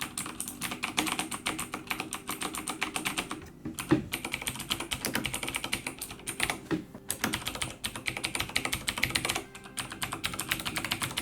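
Fast typing on a Corsair K70 RGB MK.2 mechanical keyboard with clicky Cherry MX Blue switches: a dense stream of sharp key clicks, several a second, broken by a couple of brief pauses.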